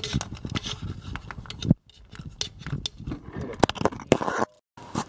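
Metal clicks, taps and scrapes of engine parts being handled by hand under a car, with the sharpest clicks about 1.7 s and 3.7 s in. The sound cuts out to silence twice, briefly.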